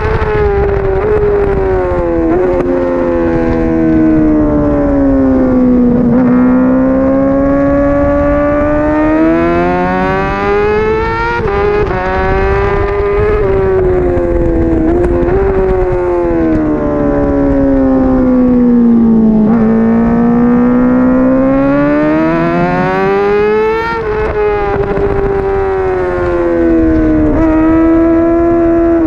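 A 2021 Honda CBR600RR race bike's inline-four engine at racing speed on track. Its pitch falls as the bike slows for corners and climbs as it accelerates out, twice over, with brief steps at the gear changes.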